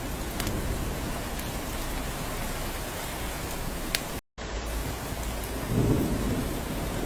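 Steady rain with a few sharp drop ticks, and a low rumble of thunder swelling about six seconds in. The sound cuts out completely for an instant a little past four seconds.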